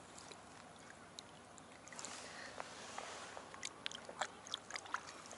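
Faint lapping of shallow water around a wading angler, with a scattering of small light ticks and splashes in the second half.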